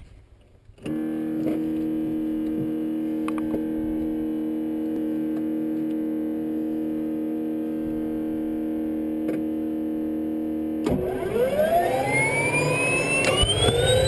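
A steady drone with a few faint clicks, then about 11 seconds in the Mosquito XET helicopter's turbine engine begins spooling up on battery start, a whine rising quickly in pitch and growing louder.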